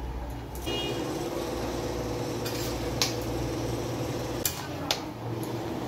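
Fried potato pieces tipped from a metal bowl into a metal kadai of curry, then a spatula stirring the pan and knocking against its metal side a few times near the middle and end, over a steady low background hum.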